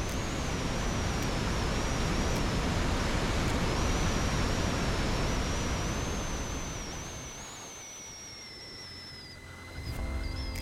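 Rushing water of river rapids, a steady noise that dies away between about seven and nine seconds in. Background music comes in near the end.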